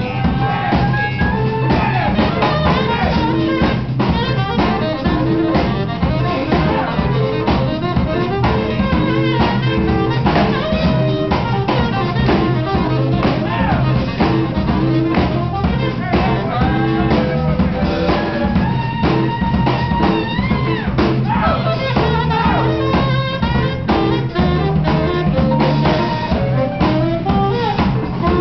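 Live jazz band playing: a saxophone carries the melody over electric guitar, electric bass and a drum kit, with no pause.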